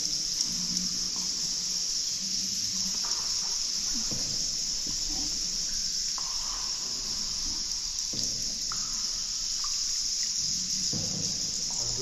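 Steady high-pitched chorus of insects, with occasional soft water splashes and drips.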